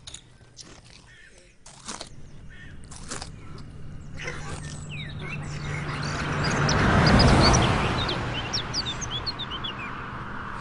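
A rushing noise swells to a loud peak about seven seconds in and then fades, while a flurry of short, high, rising squeaks from the cartoon worms' shrieks sounds over it.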